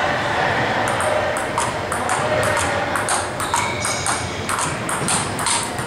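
Table tennis rally: the ball clicking in quick succession off the paddles and the table top.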